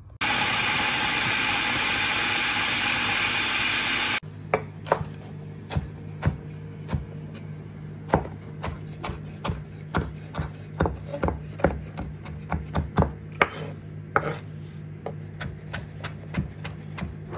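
An electric food processor runs at full speed for about four seconds, chopping onion, green chillies and ginger, then cuts off suddenly. A kitchen knife then chops fresh coriander on a wooden chopping board in quick, uneven strokes, about three a second.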